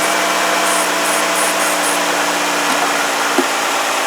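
Aerosol can of Fluid Film spraying onto battery terminals, a steady hiss, over the 3.6 V6 engine idling with a low hum. A light tap about three and a half seconds in.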